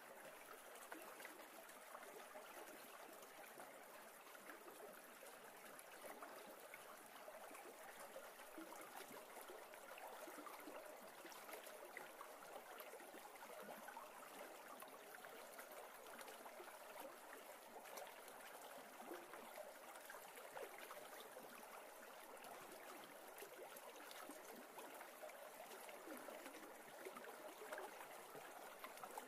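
Faint, steady sound of a shallow river flowing.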